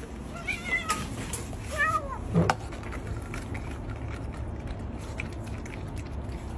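A cat meowing twice, short high wavering meows, followed by a single sharp knock over a steady low background rumble.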